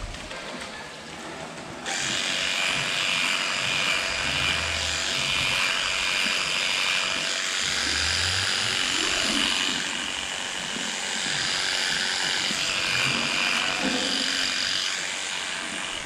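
Handheld electric clipper switching on about two seconds in and running with a steady high-pitched buzz as it clips the hair of a cow's tail switch, easing briefly about ten seconds in.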